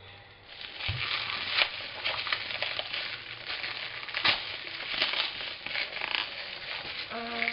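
Plastic packaging being torn open by hand, crinkling and crackling in irregular sharp bursts, with a soft low thump about a second in.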